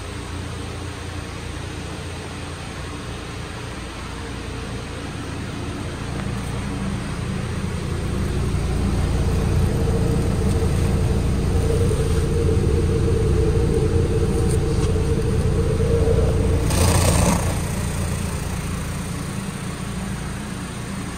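2013 Hyundai Veloster's 1.6-litre four-cylinder engine idling, heard at the tailpipe as a steady low exhaust rumble that grows louder about eight seconds in. There is a short, louder rush of noise near the end.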